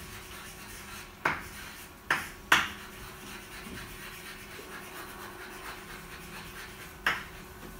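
Chalk writing on a chalkboard: faint scratching with four short, sharp chalk strokes, about a second in, twice around two and a half seconds, and once near the end.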